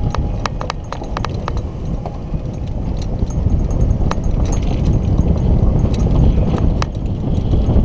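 Golf cart riding along a paved cart path: a loud, steady low rumble of wind and wheels, with irregular sharp clicks and rattles throughout.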